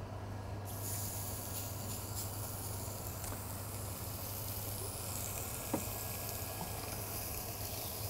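Halibut fillet sizzling as it is laid into a hot cast-iron grill pan, the hiss starting suddenly about a second in and holding steady, with a second piece then going into an oiled frying pan. A single short knock about six seconds in.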